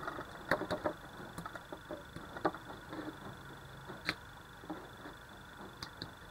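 Fingers rubbing and pressing a raw beef steak on a plate: faint soft handling noise with scattered small clicks, and one sharper click about four seconds in.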